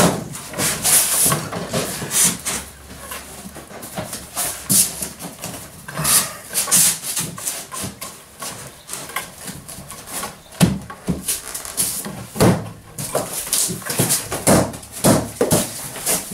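Irregular knocks, scrapes and creaks of wooden floorboards being handled and fitted over foam insulation boards, with someone shifting about on the floor on hands and knees.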